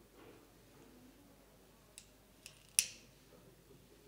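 Small pocket lighter being struck: three sharp clicks about two to three seconds in, the last the loudest, as it catches and lights.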